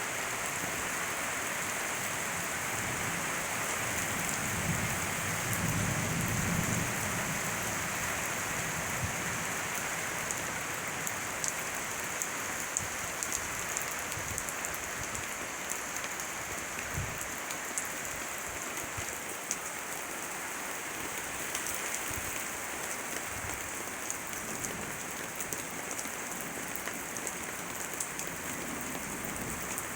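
Heavy rain falling steadily, with scattered sharper drop ticks. A low rumble swells briefly about five seconds in.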